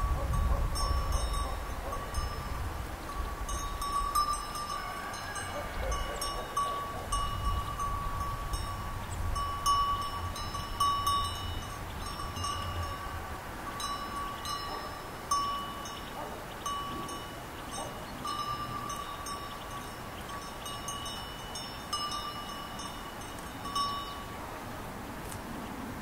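Sheep bells clinking irregularly as the sheep graze and move, each small bell struck again and again with a ringing tone. A low rumble runs under them in the first half.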